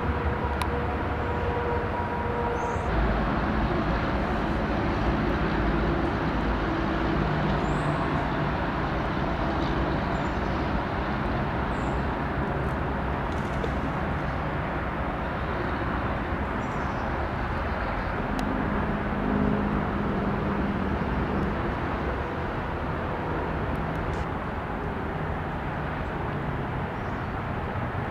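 Steady rumble of road traffic, with low engine hum that shifts as vehicles pass, and a few brief high bird chirps now and then.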